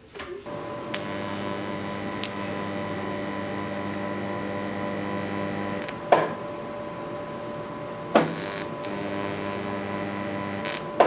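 Electric arc welding: a steady mains buzz from the welding arc and welder, broken by sharp cracks about six and eight seconds in and again at the very end.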